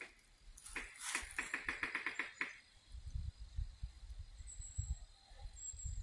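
A rapid rattling run of sharp taps, about nine a second, lasting just under two seconds, that sounds at first like a woodpecker drumming but that the hiker judges is not a woodpecker. Irregular low thuds follow.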